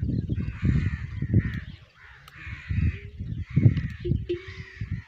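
Dromedary camels calling: a series of low, rough, pulsing calls in repeated bursts with short gaps between them.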